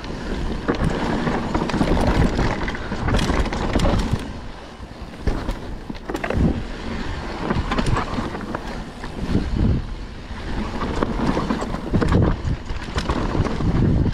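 Mountain bike descending a dirt forest trail: tyres rolling and skidding on loose dirt, with constant rattling and clattering from the bike over roots and bumps and wind buffeting the action-camera microphone. It eases off briefly about five seconds in.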